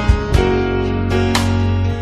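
Background music led by acoustic guitar, with a fresh strum about once a second.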